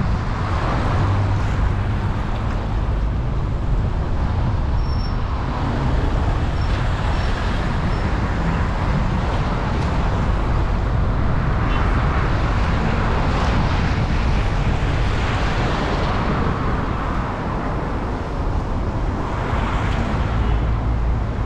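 A car driving on a wet city street: a steady low rumble of engine and road noise, with the hiss of tyres on wet asphalt swelling several times.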